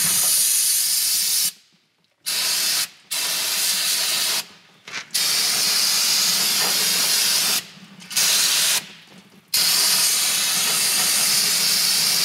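Pressurised liquid cleaner hissing as it is sprayed over an old truck's asbestos drum-brake parts, in about six long bursts with short pauses between them. The parts are being washed down with liquid so the brake dust is not blown into the air.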